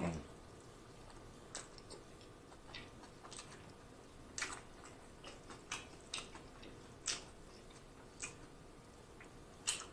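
Close-miked chewing of a mouthful of cheeseburger: faint, irregular wet mouth clicks and smacks at uneven intervals.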